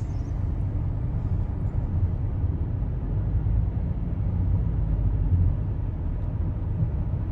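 Steady low rumble of a car's engine and tyre noise, heard from inside the cabin while driving.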